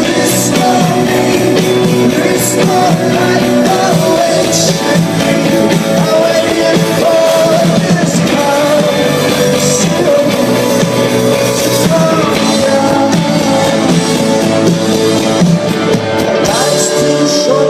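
Rock band playing live, with electric guitars, drums and a male lead vocal, loud and continuous.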